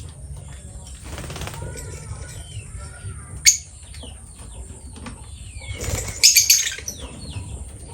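Lovebird flapping its wings and giving short chirps, with a sharp click about three and a half seconds in and a loud cluster of quick strokes and chirps near six seconds.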